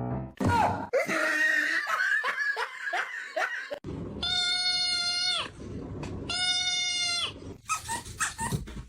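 A pet animal crying out: several short sliding cries, then two long, steady, held calls of about a second each, then more short cries.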